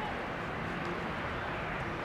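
Steady open-air ambience of a soccer field: a low rumble and hiss with faint distant voices.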